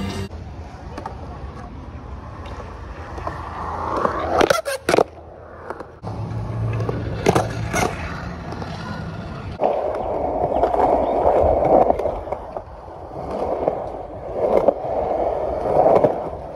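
Skateboard wheels rolling on concrete, broken by a few sharp clacks of the board striking the ground around the middle. From about ten seconds in comes a louder, coarser rolling noise of wheels on a rough surface.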